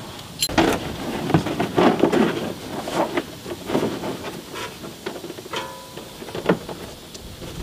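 Irregular clicks and knocks of metal parts being handled and fitted by hand at a car's rear brake caliper and rotor, with a brief squeak about five and a half seconds in.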